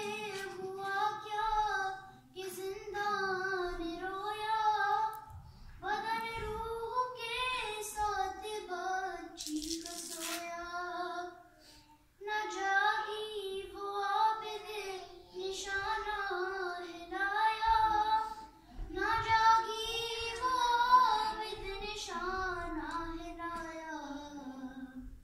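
A high female voice reciting an Urdu salam unaccompanied, sung in long, wavering melodic phrases with short breaths between them and a longer pause about twelve seconds in.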